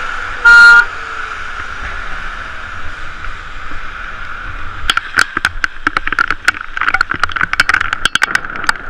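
A short, loud toot of a car horn, then a steady hiss of a bicycle riding on wet pavement in the rain. From about five seconds in, a run of irregular sharp clicks and knocks joins the hiss.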